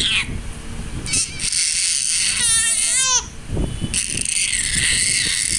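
A baby's short, high-pitched cry that bends up and down in pitch, about two and a half seconds in, over a rushing background noise that comes and goes.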